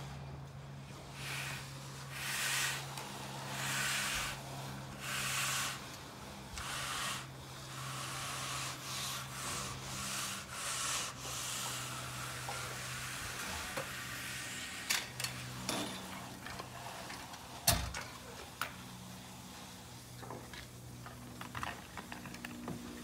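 A long-handled concrete finishing float scraping over a freshly poured slab: a run of rasping swishes about once a second, then a few sharp knocks about two-thirds of the way through, over a steady low hum.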